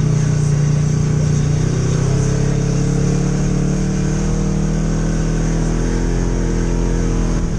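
Polaris RZR XP 1000 side-by-side's parallel-twin engine running steadily under way at moderate throttle. Its pitch rises a little about two seconds in, then eases off gradually.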